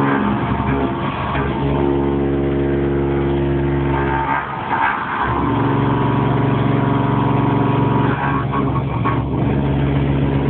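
CNC milling machine roughing metal with a Tungaloy indexable cutter at 1400 rpm spindle speed, 7000 mm/min feed and 1 mm per pass. It makes a loud, steady pitched cutting hum with harmonics. The hum breaks off for about a second around four and a half seconds in, then carries on, and wavers briefly near the end.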